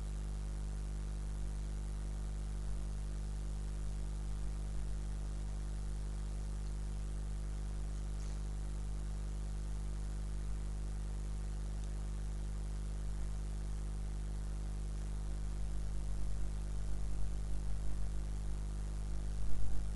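Steady low electrical hum with hiss in a microphone recording, with a few faint soft noises in the last few seconds.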